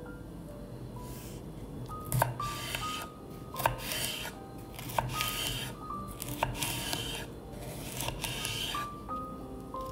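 Kitchen knife slicing a red bell pepper into strips on a wooden cutting board: a crisp cut with a knock on the board about every second and a half, starting about two seconds in. Light background music with short plucked notes plays throughout.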